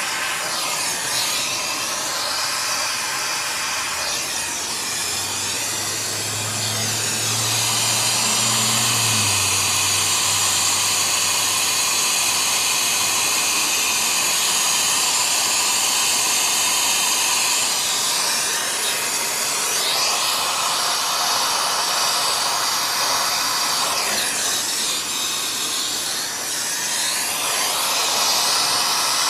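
Brazing torch flame hissing steadily as copper refrigeration line joints are brazed, its tone sweeping up and down now and then. A low hum comes in briefly a few seconds in.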